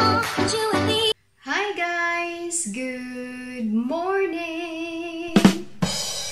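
A pop music intro with drums and singing, cut off about a second in; then a woman's voice sings long held notes, with one sharp knock about five seconds in.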